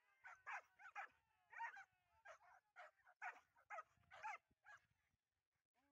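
Hunting dog yelping and whining faintly in quick, short cries, each falling in pitch, about a dozen over four and a half seconds before it goes quiet.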